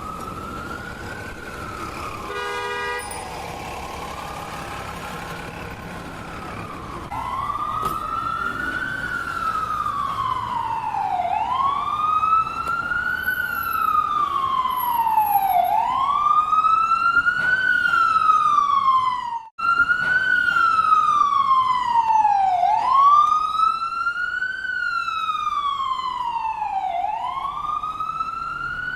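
Ambulance siren wailing: each cycle rises quickly in pitch and then falls slowly, repeating about every four and a half seconds. It grows louder about a quarter of the way in and cuts out for an instant about two-thirds through. A short horn-like blast sounds near the start.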